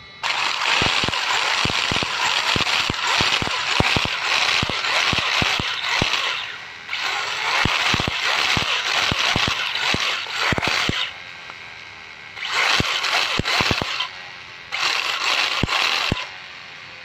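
Homemade backfire exhaust and smoke unit on an RC drift car: a loud hiss in stretches of a few seconds with short pauses between, broken by sharp irregular pops and crackles from the exhaust.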